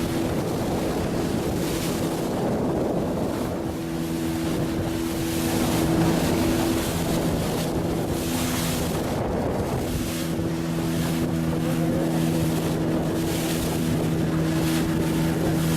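Fishing boat's engine running at a steady hum, with wind buffeting the microphone and the rush of water alongside.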